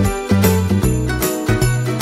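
Background music with a steady beat of about three a second, a bass line and bell-like jingles.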